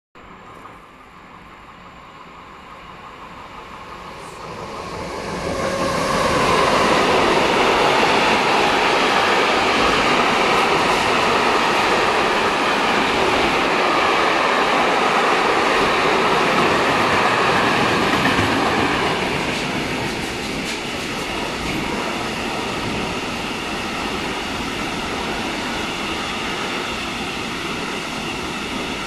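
Electric freight train of container wagons passing close by: the sound swells in over the first several seconds as the train arrives, then holds as a loud, steady rolling rush of wheels on rail, easing a little about two-thirds of the way through as the wagons keep passing.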